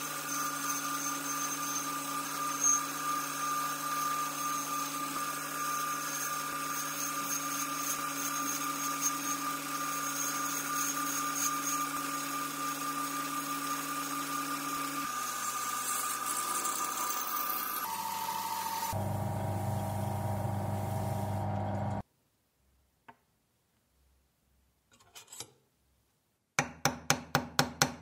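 Metal lathe turning a brass part, the cutting tool shaving off brass chips over a steady machine hum; the sound changes about 15 s in, and a louder, lower machine noise runs for a few seconds before it goes quiet. Near the end a ball-peen hammer starts tapping rapidly on a brass knob, driving it onto a steel rod held in a vise.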